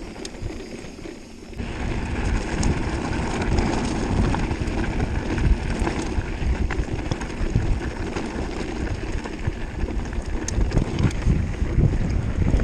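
Wind buffeting an action camera's microphone as a mountain bike rolls fast down a gravel track, with rumbling tyres and scattered sharp clicks and rattles from the stones and bike. It grows much louder about a second and a half in.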